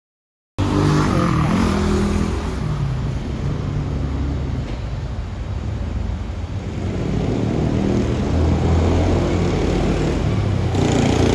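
Honda Gyro X's 50 cc two-stroke engine revving as the scooter is ridden, its pitch rising and falling and climbing again near the end. It comes in suddenly after a brief silence at the start.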